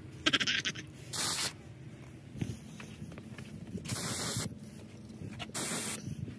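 Aerosol can of wasp and hornet spray fired in several short hissing bursts, each about half a second long.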